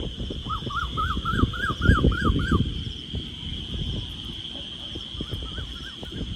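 A steady, high evening insect chorus shrilling on one pitch. About half a second in an animal gives a quick run of about eight short rising-and-falling calls, about four a second, and a few more come near the end, over uneven low rumbling noise on the microphone.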